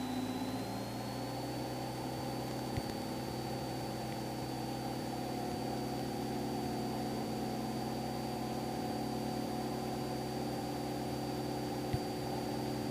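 Cessna 172R's four-cylinder engine running steadily in the cabin, its note stepping up slightly in the first second or two as power comes in for the slow-flight recovery. A thin, steady high whine sits on top, with two faint clicks.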